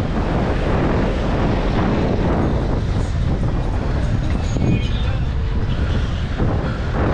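Wind rushing over the microphone of a camera carried on a moving bicycle: a steady low rumble that does not let up.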